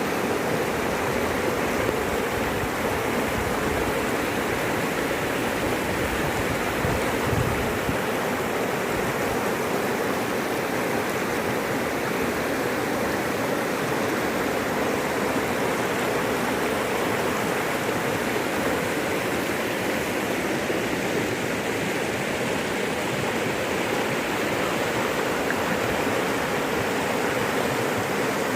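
Floodwater rushing: a loud, steady wash of fast-moving water, with extra low rumble in the first several seconds.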